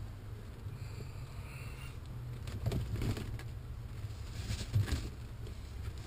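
Wind buffeting the microphone in a steady low rumble, with fabric rustling briefly twice.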